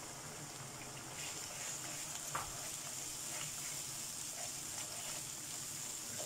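Onions, garlic and tomato paste frying in hot oil in a nonstick wok: a steady sizzle that grows stronger about a second in, with a wooden spatula stirring through it and one light knock a couple of seconds in.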